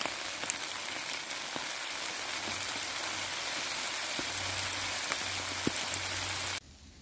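Rain falling on wet leaf litter: a steady hiss with scattered louder drops ticking on the leaves. It cuts off suddenly near the end.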